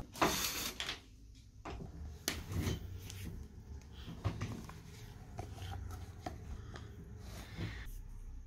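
Handling sounds at a desk: a rustle in the first second, then scattered light taps, clicks and knocks as a tablet in a folio case and small objects are picked up and set down.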